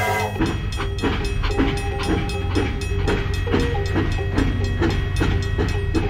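Background music with a quick, steady beat of about three to four strokes a second over held tones and a low steady hum.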